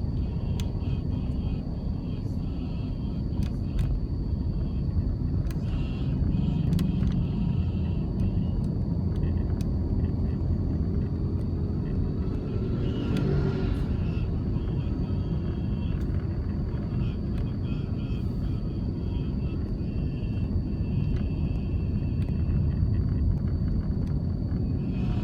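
Car driving on city roads: a steady low rumble of engine and tyres on the road, with a brief swell about thirteen seconds in.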